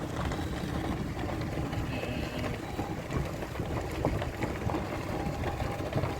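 Car driving slowly along a campground road, heard from inside the cabin: a steady low rumble of tyres and road with light rattles and clicks.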